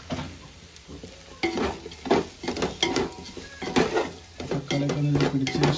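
Metal spoon stirring and scraping in a cooking pot, clinking against the side many times, with food frying in it.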